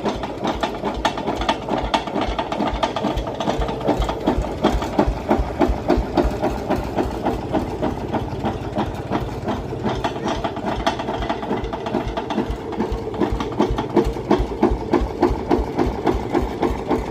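Diesel engine running steadily at idle with a rapid, even knock on every firing stroke.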